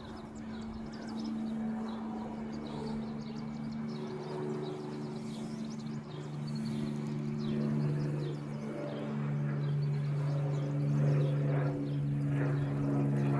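Cessna light aircraft's propeller engine droning steadily overhead, slowly growing louder toward the end, with birds chirping.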